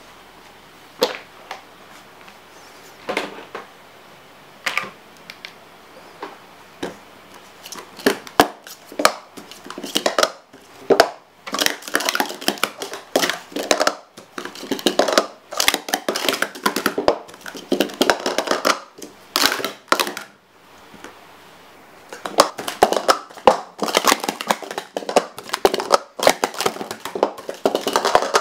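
Hard plastic sport-stacking cups (Speed Stacks Black Pro Series 2) clacking as they are stacked up and down on a stacking mat: a few single clacks at first, then fast runs of rattling clicks, with a short pause about two-thirds of the way through.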